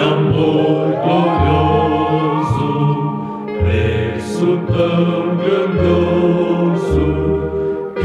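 Choir singing a slow gospel hymn with instrumental accompaniment: long held notes over a bass that steps to a new note about every second.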